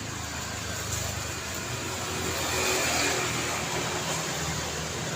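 City street traffic: car engines and tyre noise, with a steady low engine hum under the road rush, growing a little louder about halfway through as traffic builds.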